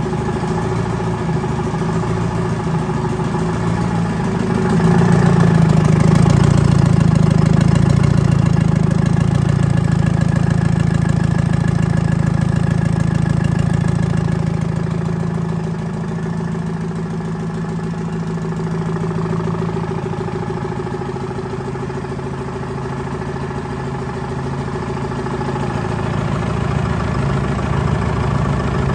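Detroit Diesel 4-53, a 3.5-litre four-cylinder two-stroke diesel, running steadily on its test run at an even speed, louder for several seconds from about five seconds in.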